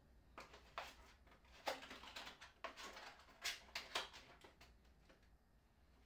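Unboxing handling noises, likely the plastic packaging and accessories being moved: a scattered run of light crinkles and clicks, loudest about two and three and a half seconds in, dying away after about five seconds.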